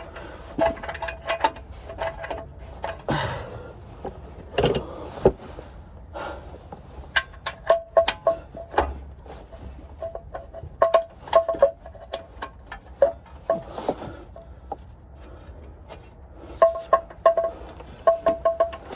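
Hand tools working on metal: a ratchet wrench clicking in short runs, with ringing metallic clinks and a few scrapes.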